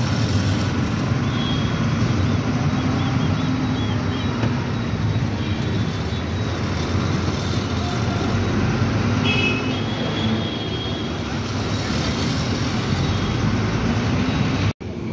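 Truck engine running with road and traffic noise, heard from inside the cab while driving. A vehicle horn toots briefly about nine seconds in, and the sound cuts off suddenly just before the end.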